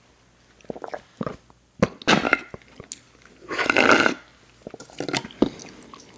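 Close-miked mouth sounds of someone eating: scattered wet smacks and clicks, with two louder chewing bursts about two and four seconds in, the second lasting about half a second.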